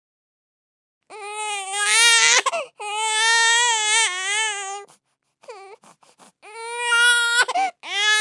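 Infant crying: after about a second of silence, a run of long wails, about four, with short catching whimpers between them around the middle.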